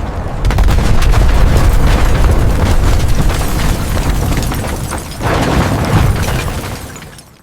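Explosion sound effect: a blast swells about half a second in into a long, loud, deep rumble that slowly dies down, surges again about five seconds in, then fades out.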